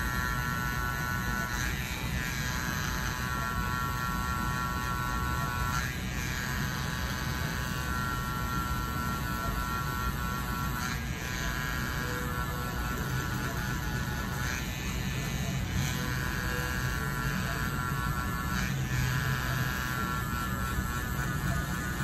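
Mast Tour Pro cordless rotary tattoo pen buzzing steadily as it packs black ink into skin.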